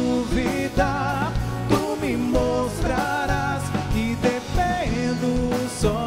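A singer with band accompaniment performing a slow Portuguese-language Catholic worship song, holding long notes with vibrato.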